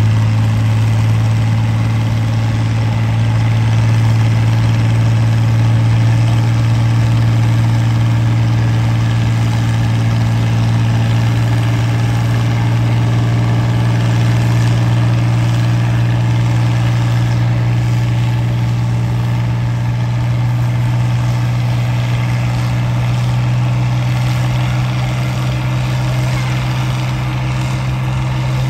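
International Harvester farm stock tractor's engine working under load as it pulls a weight-transfer sled, a steady low engine drone.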